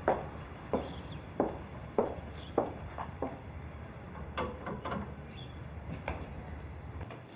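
Footsteps on a hard floor at a steady walking pace, about one step every half second or so, fading out about three seconds in. A few sharper clicks and knocks follow near the middle.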